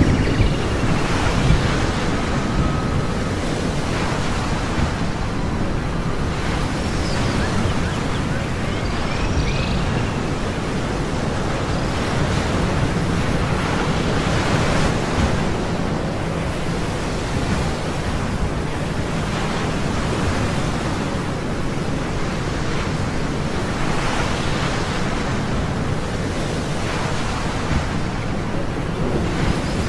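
Ocean surf: a steady wash of waves that swells and ebbs every few seconds, with a few faint high chirps in the first few seconds.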